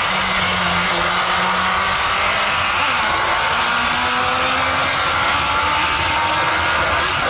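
The buggy's Honda CBR1000F inline-four motorcycle engine pulls hard under acceleration. Its note drops once about two to three seconds in, like a gear change, then climbs steadily. Heavy rushing wind noise from the open cockpit runs under the engine note.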